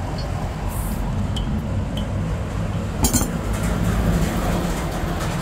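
Light metal clinks, with one sharper clink about three seconds in, over a steady low rumble.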